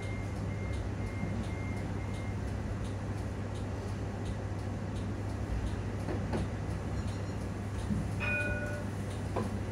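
Interior running noise of an Edinburgh tram (CAF Urbos 3): a steady low hum with light rattles and ticks. A row of short high beeps sounds over the first two seconds, and a brief chime-like tone comes about eight seconds in.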